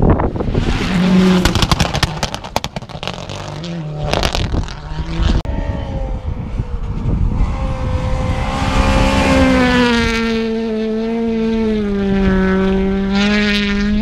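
Rally cars at speed on a gravel stage. First an engine revs hard amid many sharp cracks and pops. Then, from about halfway, an engine is held at high revs as a strong steady note that dips a little and climbs again.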